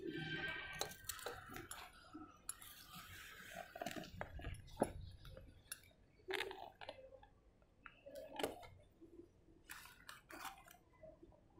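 Scattered light clicks, taps and clinks, the loudest a sharp knock about five seconds in.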